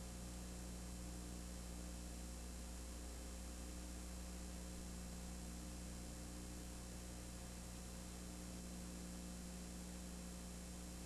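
Steady low electrical hum with several fainter steady tones above it, under an even hiss, unchanging throughout; no game sound comes through.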